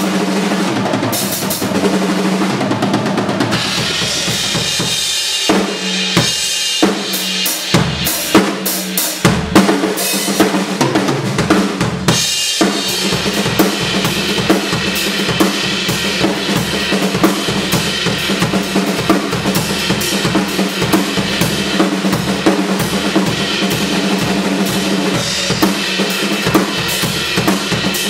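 Gretsch drum kit with Meinl cymbals played in a steady groove: bass drum and snare hits under a wash of cymbals, with a busier stretch of separate hits in the first half.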